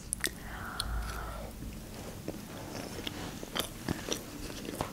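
A person biting into and chewing a piece of sushi roll, with scattered small clicks.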